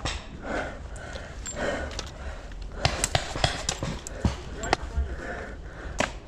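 Footsteps crunching through dry leaves and twigs, with breathing close to the microphone. Sharp, irregular snaps and knocks grow louder and more frequent about halfway through.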